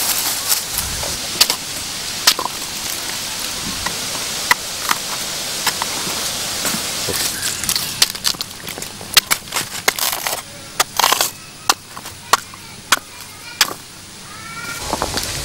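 Irregular sharp snaps, knocks and rustles of elephant-ear plant (Typhonodorum lindleyanum) stalks and fruit being cut and handled by hand. They come over a steady outdoor hiss that drops away about ten seconds in.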